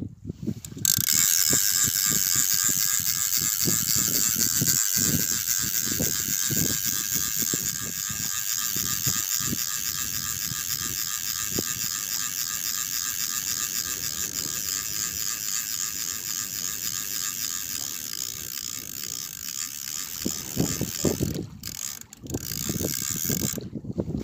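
Fishing reel being cranked to wind in a hooked fish: a fast, continuous ratcheting whirr that starts about a second in and stops about three seconds before the end. Low knocks of handling sound beneath it.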